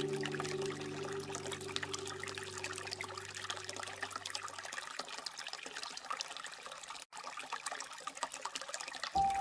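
Water trickling and splashing, a steady patter of small drops and pouring. Held music notes fade out over the first half, and the sound cuts out for an instant about seven seconds in.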